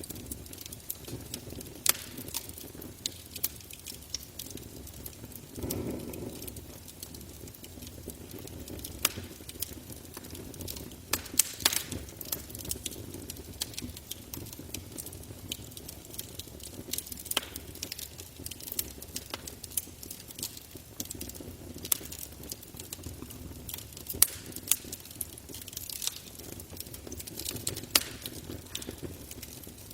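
Campfire burning, with irregular sharp crackles and pops from the wood over a steady low rush of flame, briefly swelling about six seconds in.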